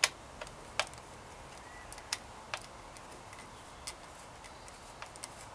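Small, irregular metallic clicks, about ten of them, as a screwdriver works a short screw through a mudguard stay fitting. The loudest click comes right at the start.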